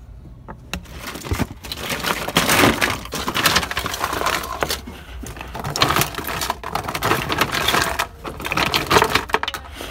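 Hard plastic ink cartridges and small electronics clattering and rattling against each other as a hand rummages through a recycling bin full of them, starting about a second in.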